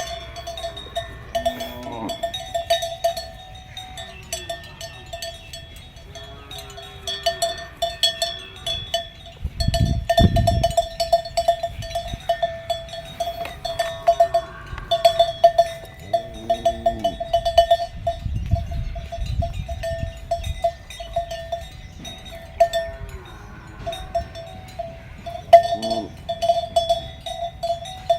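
Bells hung on cattle clanking and ringing irregularly as the animals move, with short animal calls every few seconds.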